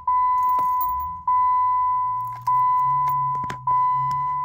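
Chrysler PT Cruiser dashboard warning chime with the ignition switched on: a single-pitched ding repeated about every 1.2 seconds, four times, each fading before the next. Keys jingle on the ring in the ignition.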